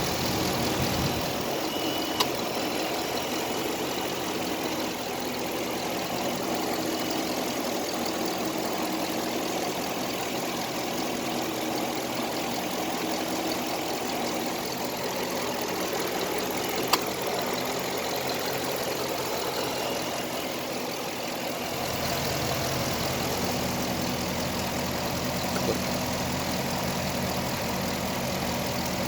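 6.4L Hemi V8 idling steadily, with a sharp click twice and a deeper low hum coming in about three-quarters of the way through. The owner traced the clicking to the air conditioning running.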